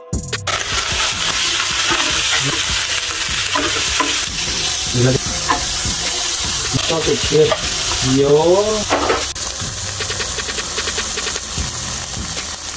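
Beef eye of round steak slices sizzling steadily on a hot electric indoor grill. A few short squeaks come about halfway through as metal tongs turn the meat.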